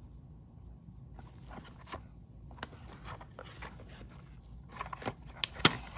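Gloved hands handling and opening a small paperboard medicine carton: rustling and scraping of the cardboard, with sharp clicks and crackles growing busier toward the end, the loudest a couple of clicks about five and a half seconds in.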